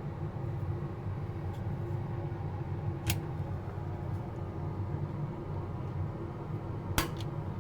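Steady low hum with two sharp clicks, about three seconds in and again near the end.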